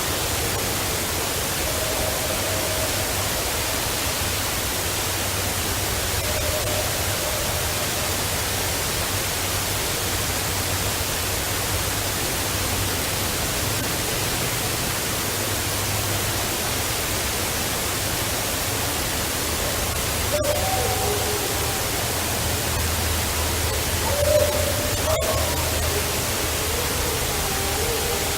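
Steady hiss of a field recording, with faint, distant, wavering vocal calls that rise and fall in pitch. A couple of short calls come early on, and longer, wavering ones come in the last eight seconds; the source of these strange vocals is unidentified.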